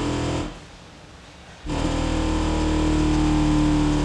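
Kicker CVR 12-inch subwoofer playing a slowly falling low-frequency sweep at high level, heard with heavy distortion and harmonics. It drops out about half a second in and comes back about a second later.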